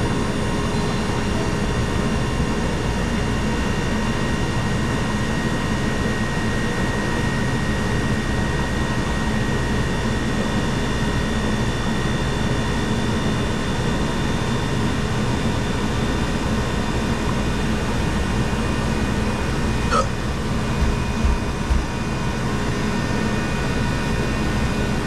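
Hoshizaki ice machine running with its newly replaced compressor: a steady mechanical whir with several steady tones. There is a single click about twenty seconds in and a couple of light knocks shortly after.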